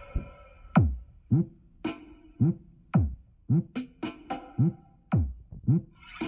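Electronic dance music played through a mobile sound system's speakers: deep drum-machine kicks that drop in pitch, about two a second, with sharp high hits between them.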